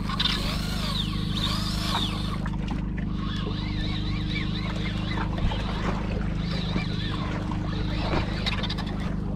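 Boat engine running steadily, with a flurry of high, rising-and-falling calls over it, thickest in the first two seconds and again a few seconds in.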